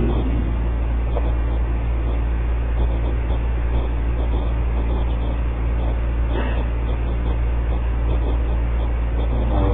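A steady deep hum with a faint even rushing noise over it.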